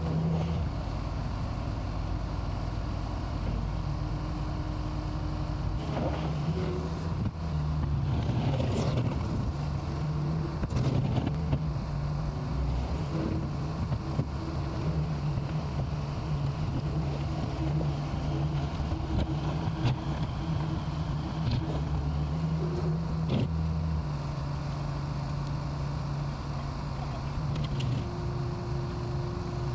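Skid-steer loader's engine running steadily, its pitch shifting now and then as it works, with a few short clanks and knocks along the way.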